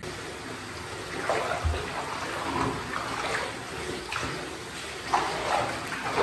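Tap water running into a bathtub as it fills, with a hand swishing through the water about once a second.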